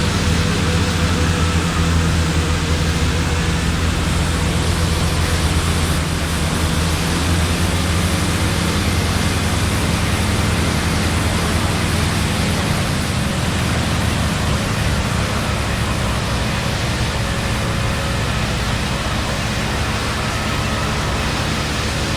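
Steady rushing noise of strong wind and rain on the microphone, with a low steady drone underneath that eases slightly past the middle.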